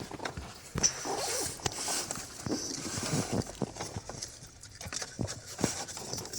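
Irregular clicks and knocks of hand tools and metal parts in the engine bay as the drive belt is taken off.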